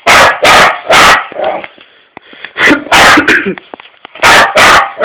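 Dog barking loudly, a run of about eight sharp barks in clusters of two or three with short pauses between.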